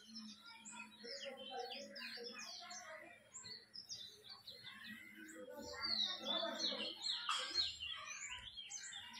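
Small birds chirping in quick, overlapping calls, busiest about six to seven seconds in, with faint voices in the background.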